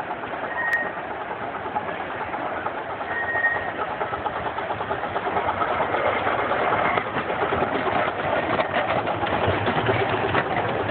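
Miniature park railway train approaching and passing: the small locomotive's engine running with a fine rhythmic chug, growing louder as it nears, with clicking from the wheels and cars over the track in the second half.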